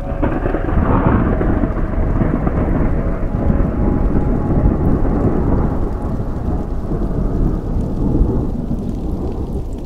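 Rolling thunder rumble over rain, swelling about a second in and slowly dying away.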